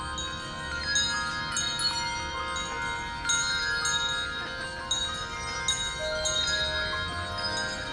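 Many bells of different pitches rung together by a group, with overlapping strikes at no steady rhythm, so the tones ring over one another continuously.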